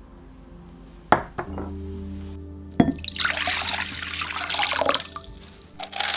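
Water poured from a glass jug into a glass bowl, splashing for about two seconds, with a second pour starting near the end. Before it, two sharp knocks of glassware set down on a wooden board.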